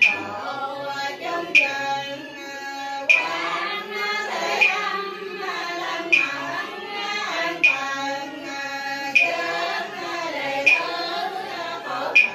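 Sung chanting of a Cao Dai funeral prayer, slow melodic phrases held by voices. A sharp percussive strike keeps time about every second and a half.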